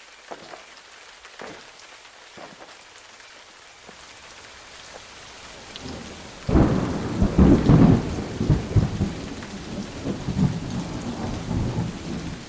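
Steady rain hiss, with a peal of thunder breaking suddenly about six seconds in and rolling on in uneven rumbles as it slowly fades.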